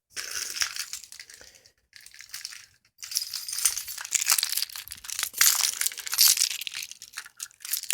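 Metal hinged handcuffs and their key being handled: quick runs of metallic clicking and rattling in three stretches, the longest from about three seconds in.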